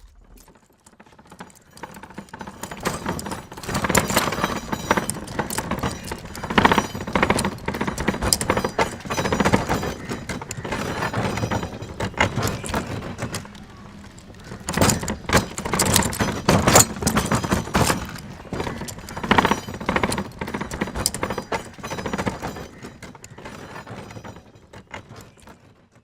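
Bullock cart passing by: its wheels knock and clatter over a rough road along with jingling bells. The clatter swells twice and fades away near the end.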